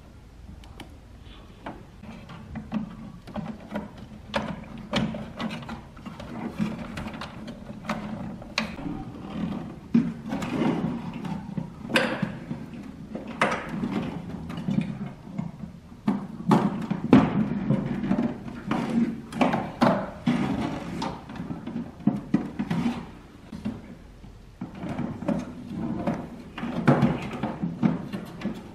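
Plastic fan housing parts being handled and fitted together: irregular clicks, taps and knocks of plastic panels and fittings, with short scraping and rattling.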